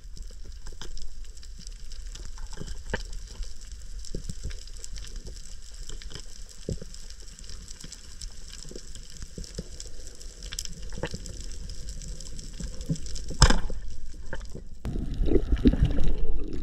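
Underwater reef sound heard through a camera housing: steady crackling with many scattered sharp clicks over a low rumble. About three-quarters of the way through there is a single loud crack, the speargun shot that spears a coral trout. Louder rumbling and churning follow near the end.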